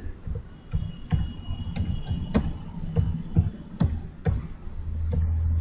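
Computer keyboard being typed on, about a dozen sharp key clicks at an uneven pace as a word is entered.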